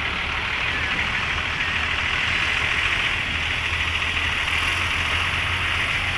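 Diesel engine of a truck-mounted water well drilling rig running steadily at low revs as the truck inches along a low-bed trailer, with a steady high hiss over the low hum.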